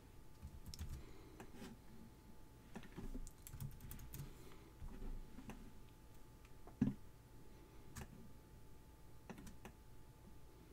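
Faint, scattered clicks and taps of a computer mouse and keyboard, with one louder click about seven seconds in.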